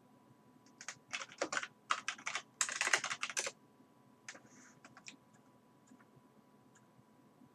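Typing on a computer keyboard: a quick run of keystrokes lasting about three seconds, then a few more single keystrokes a second later.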